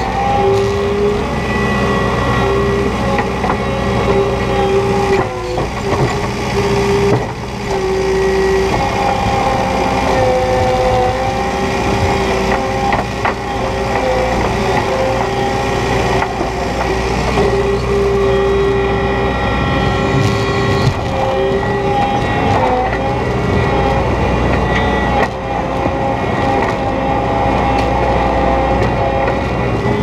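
New Holland 170S skid steer's diesel engine running steadily under load while it pushes and lifts snow, with a steady whine over the drone that shifts slightly in pitch.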